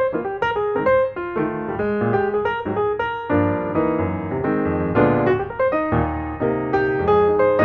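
Background piano music, a steady stream of notes and chords.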